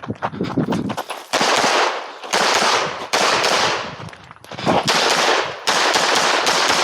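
Rapid strings of 9mm pistol shots from a Glock 47 shot in carry optics during a USPSA stage. The shots come in quick clusters, each crack followed by a ringing echo.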